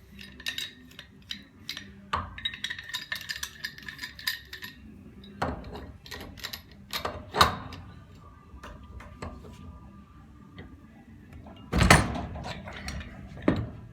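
Metal pump parts and hand tools clinking and knocking during disassembly of a Graco Fireball 300 pump, with a ringing metallic rattle a couple of seconds in and one loud thump near the end.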